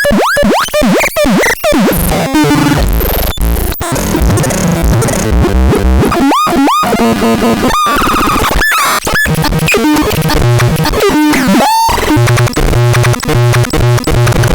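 Synthesizer making harsh, chaotic electronic sounds: quick swooping pitch sweeps and zaps over a buzzing, noisy bed. In the last couple of seconds it settles into a fast, stuttering repeated pattern.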